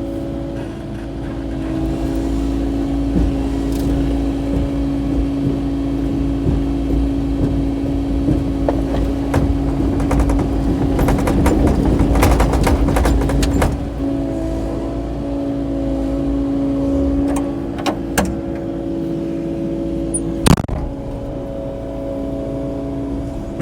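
Kubota KX080-4 excavator's diesel engine running steadily under working load. A stretch of clattering and scraping in the middle as the machine works through brush and rock, and a single sharp knock near the end.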